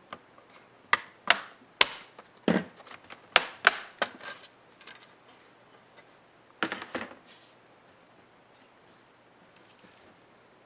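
Sharp clicks and knocks of tools and plastic laptop parts being handled during laptop disassembly: a quick run of about seven between one and four seconds in, then two more near seven seconds.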